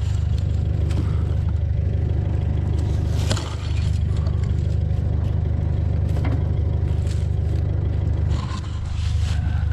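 A 4WD's engine running steadily at low speed while branches and scrub scrape and brush along the vehicle's sides, with scattered snaps and ticks.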